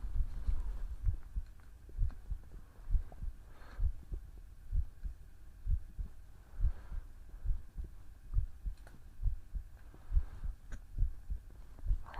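A human heartbeat recorded close to the chest: low, soft thumps in a steady rhythm of a little over one beat a second.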